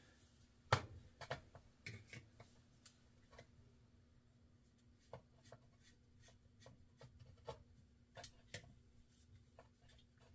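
Hands moving an old steel fishing rod and its reel: scattered light knocks, clicks and rubbing, with the sharpest knock about a second in.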